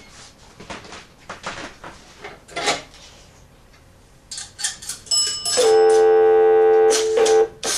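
Payphone clicks and handling noises, then a loud steady bell-like tone for about two seconds, starting about five and a half seconds in. Quick repeated chimes follow near the end.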